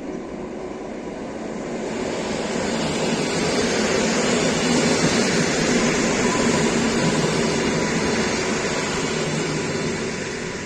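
A train passing by, its rolling noise growing louder over the first few seconds, staying steady through the middle, then easing off near the end.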